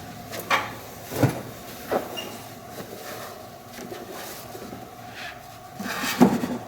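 Cushioned pads being loaded into a hand-built cart and bumping against its frame: three knocks in the first two seconds, then a longer, louder knocking near the end.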